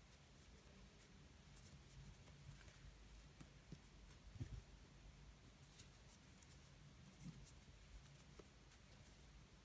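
Near silence: faint scratching and light ticks of a fine 1.5 mm crochet hook drawing yarn through stitches, with one soft low bump about four and a half seconds in.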